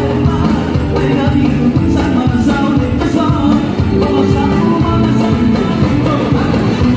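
Live Uzbek band music, loud: a male singer over hand drums, drum kit and keyboard, with a steady beat.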